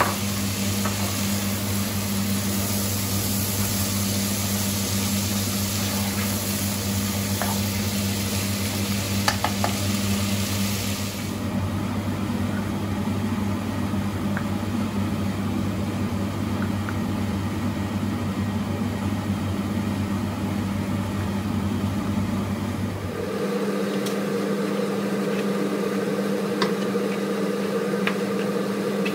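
A steady mechanical hum with a hiss underneath, changing abruptly twice.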